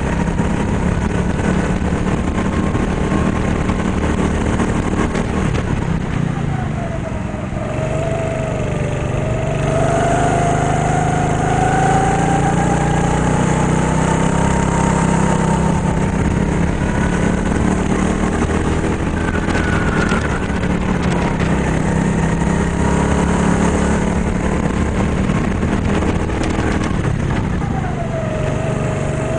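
Go-kart engine running hard during a lap. Its pitch falls as the kart slows about seven seconds in, climbs steadily as it accelerates again, and drops once more near the end.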